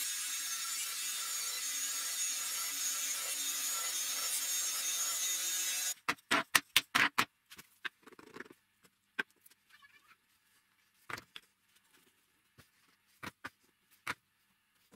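Benchtop band saw running steadily while small wooden pieces are fed through the blade. It cuts off about six seconds in, followed by a quick run of sharp wooden knocks and clacks, then a few scattered single knocks as wooden discs are handled and stacked on a workbench.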